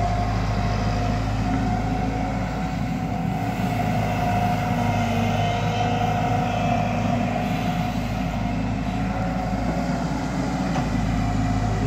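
Diesel engine of a JCB tracked excavator running steadily under working load while it digs, with a steady higher tone over the engine.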